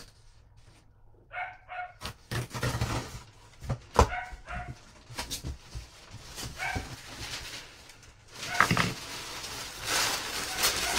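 A dog barking a few short times, with paper rustling and the knocks of a cardboard box being unpacked; loud crinkling of packing paper near the end.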